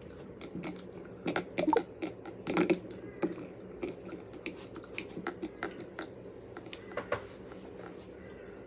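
Quiet, irregular clicks and taps of long fingernails on a smartphone screen and plastic case, mixed with the mouth sounds of chewing grapes.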